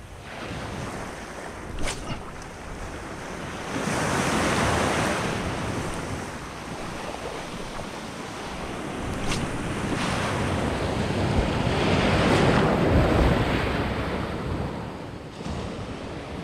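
Surf washing onto a beach, the wash swelling twice, with wind buffeting the microphone and a couple of faint sharp clicks.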